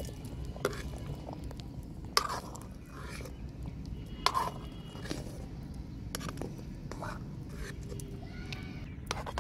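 A metal ladle stirring thick potato kadhi in a metal kadhai, knocking and scraping against the pan with about eight sharp clinks at uneven intervals, over a low steady rumble.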